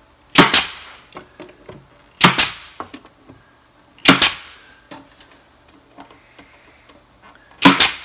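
Pneumatic nail gun firing four nails into a cabinet side, one sharp shot about every two seconds, with faint knocks between.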